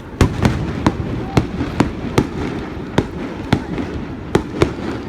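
Fireworks going off: about a dozen sharp bangs, two or three a second at an uneven pace, over a steady low rumble.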